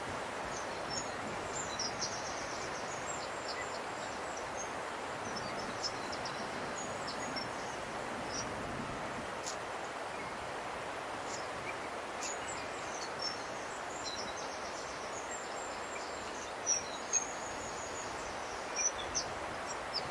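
Small birds chirping and trilling in woodland over a steady background hiss, with a few louder chirps near the end.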